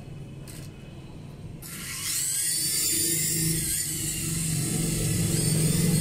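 Toy RC helicopter's small electric motors whining as the rotors spin up. It starts suddenly about a second and a half in, and a low rotor hum grows louder toward the end.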